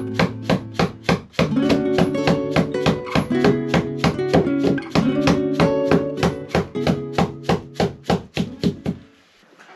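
Background music: an acoustic guitar strummed at a quick, even pace, about four strums a second, stopping about nine seconds in.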